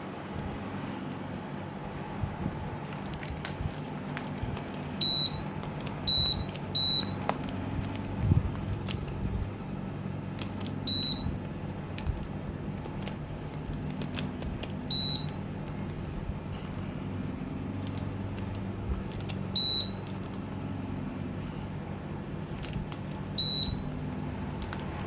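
Samsung 1.0 hp mini-split air conditioner's indoor unit giving seven short, high single beeps at irregular intervals, the acknowledgment beeps of remote-control commands. Under them the unit runs with a steady hum, its air circulation restricted by very dirty evaporator coils.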